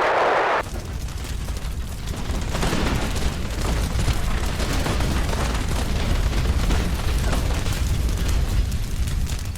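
Explosion rumble with dense crackling, cutting in about half a second in as a steady hiss stops, and running on loudly; this follows an engine fire and mayday, typical of an aircraft crash effect.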